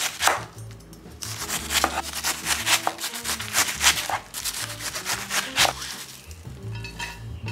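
Chef's knife slicing through a head of green cabbage on a wooden cutting board, a series of sharp cuts about two or three a second, followed near the end by softer rustling as the shredded cabbage is gathered by hand. Background music runs underneath.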